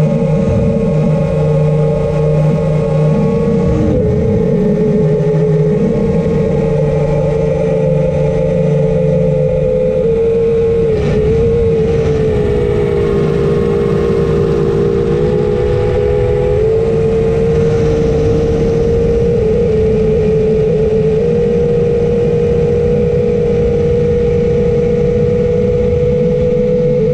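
Drone motors and propellers whining steadily. About eleven seconds in, the pitch drops for several seconds, then climbs back.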